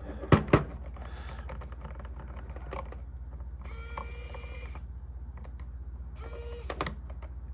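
Two sharp plastic clicks about half a second in as the battery pack of a Sony Video 8 camcorder is unlatched and pulled off, over a steady low hum. Two short buzzing tones follow, one around the middle and one near the end.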